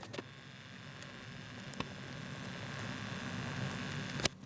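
Quiet room tone: a faint steady hum and hiss, with a small click about two seconds in and a sharper click near the end.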